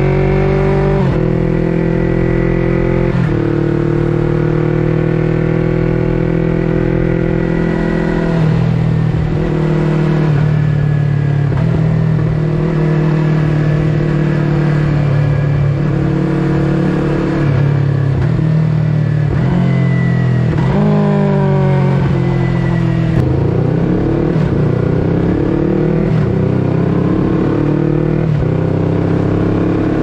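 Yamaha YZF-R3's 321 cc parallel-twin engine through an Akrapovic full-system exhaust, riding at road speed. The engine note rises with throttle and drops suddenly in steps at gear changes, many times over, with a quick rev near the end.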